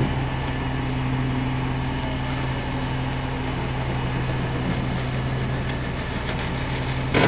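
Tow truck's engine idling steadily, a low even hum. A brief knock near the end.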